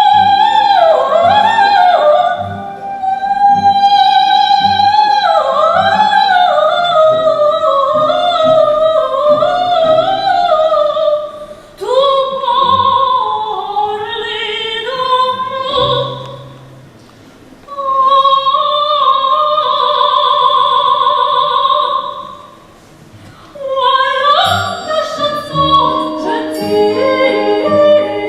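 Operetta singing with wide vibrato over accompaniment: a sung line of long, held high notes that breaks off briefly twice.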